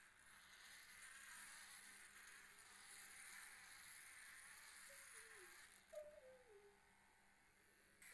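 Faint high-pitched buzz of a small homemade toy robot's electric motor running, fading about seven seconds in, with a few faint falling tones shortly before.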